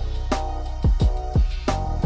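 Background music with a steady drum beat: deep kick drums and sharp snare hits over held chords.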